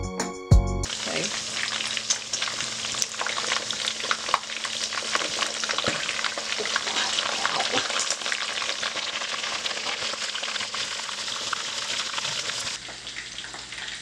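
Chicken wings frying in hot oil in a cast-iron skillet: a dense, crackling sizzle full of small pops. It starts about a second in after a short bit of music, and it drops noticeably quieter near the end.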